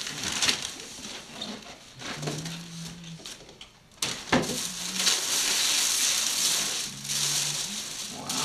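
Tissue paper rustling and crinkling as a gift box is opened on a lap, with one sharp knock about four seconds in. The crinkling is louder and denser in the second half.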